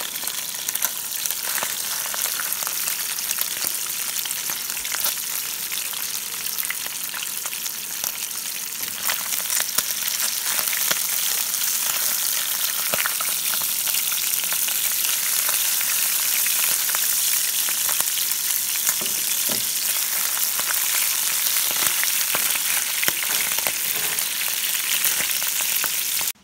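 Fish frying in hot oil in a frying pan on a camp stove: a steady sizzle with scattered crackling pops, a little louder from about ten seconds in.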